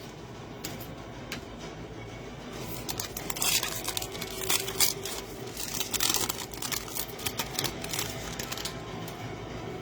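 Trading card pack wrapper crinkling and cards being handled: a dense run of quick rustles and clicks starting about two and a half seconds in, with faint background music under it.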